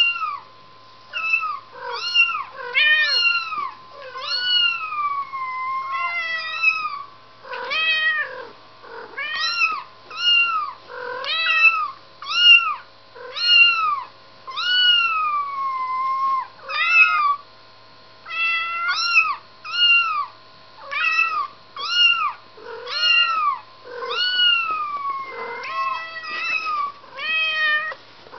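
Recorded kitten meows played in a repeating loop through a smartphone's small speaker, about one a second. Most are short, and a few are drawn out and falling.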